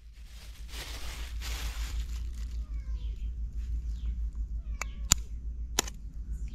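Plastic bag rustling as it is cut open with a knife, then two sharp taps, about a second apart, near the end. Faint short gliding calls come and go underneath, over a steady low rumble.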